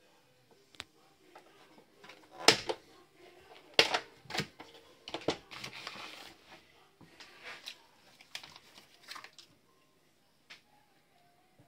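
Sharp clicks and knocks as a Silvercrest vacuum sealer's lid is opened, the loudest two about 2.5 and 4 seconds in, then the crinkling of the sealed plastic vacuum bag as it is lifted out and handled.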